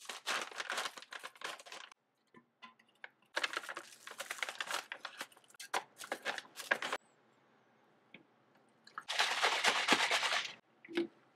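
Plastic pouch of powdered shake mix crinkling and rustling in two stretches of handling. About nine seconds in comes a louder rushing noise lasting a second and a half.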